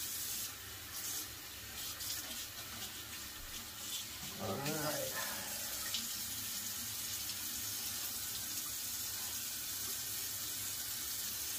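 Bathroom sink tap running steadily with water splashing into the basin. A man's voice sounds briefly about four and a half seconds in.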